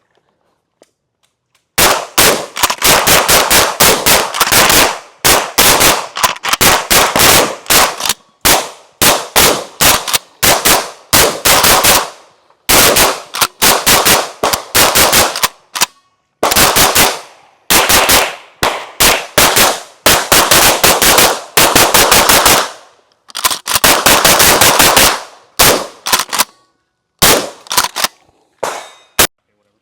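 Gunfire in rapid runs of shots, about four a second, broken by short pauses between strings.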